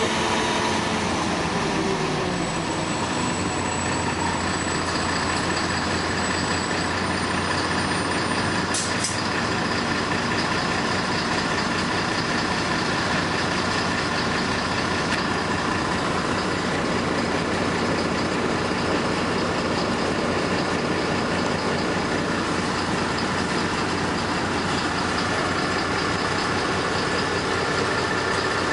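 Cabin noise of a LiAZ-5292.22 city bus underway: its diesel engine and drivetrain run with a steady hum under the road and rattle noise. A whine falls in pitch over the first two seconds.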